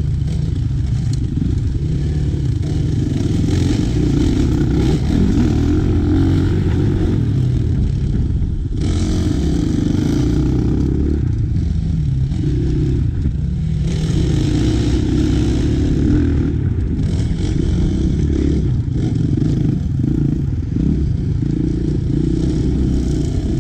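Dirt bike engines running hard on a trail, revving up and down as the throttle is opened and closed, with brief easings off twice.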